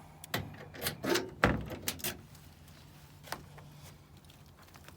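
Vending machine door and lock being closed and worked: a string of metal clunks and clicks in the first two seconds, the loudest about a second and a half in, and one more click a little past three seconds.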